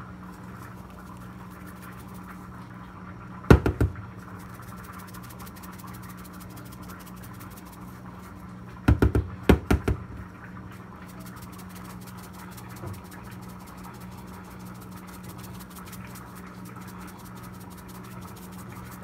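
A steady low hum with sharp knocks from seasoning containers being handled: a pair of knocks about three and a half seconds in and a quick run of several around nine to ten seconds in.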